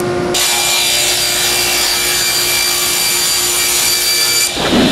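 Table saw blade cutting through an MDF panel: a steady, loud hiss of the cut over the saw's running hum, stopping abruptly near the end.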